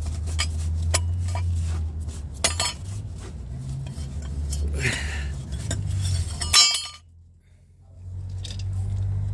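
Clutch release fork and guide tube in a 2006 BMW 120i gearbox bell housing being wiped down with a rag, the loose fork giving light metallic clinks and clicks, loudest about six and a half seconds in. A steady low hum sits underneath and drops out for about a second near the end.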